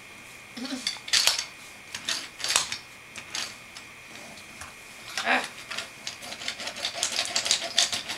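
Wooden toy trains and track pieces clacking and knocking together as they are handled and bumped: a string of sharp, separate clicks and clatters, coming thicker near the end.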